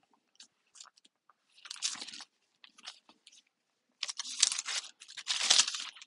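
Paper Bible pages rustling as they are leafed through in search of a verse: a few faint ticks, then short rustles about two seconds in and again about four seconds in, with the longest rustle near the end.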